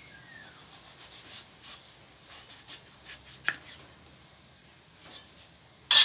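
A kitchen knife slicing through a peeled papaya on a plastic cutting board: soft scraping and rubbing with a few small clicks as the blade works through the fruit. Right at the end comes a sharp, loud clatter as the knife is set down on the concrete counter.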